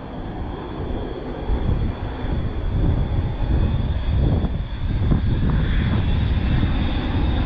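Aircraft engine rumble, low and steady, growing louder over the first couple of seconds and then holding.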